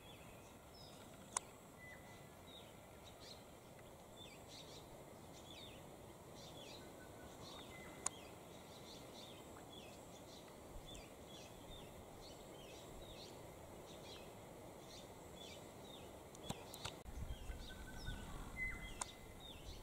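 Faint birdsong: many small birds calling with short, high, downward-sliding chirps, repeated over and over, and a few brief whistled notes. Two sharp clicks stand out, one about a second in and one near the middle, and a low rumble comes in near the end.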